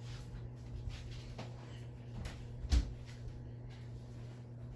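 Quiet room with a steady low hum, a few faint knocks and one louder thump almost three seconds in.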